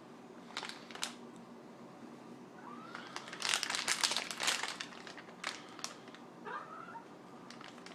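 Rustling and crinkling handling noise with scattered clicks, densest about three to five seconds in, and a couple of faint short cat meows.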